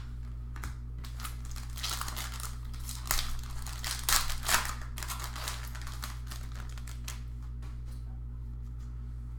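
Foil wrapper of a Panini Revolution basketball card pack being torn open and crinkled by hand. The crackling starts about a second in, is loudest around the middle and thins out in the second half. A steady low hum runs underneath.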